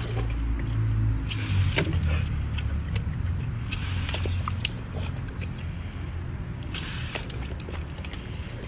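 Garden hose shower nozzle spraying water onto a car wheel in three short bursts, with small splashes and clicks as a dog snaps and licks at the spray. A steady low rumble runs underneath.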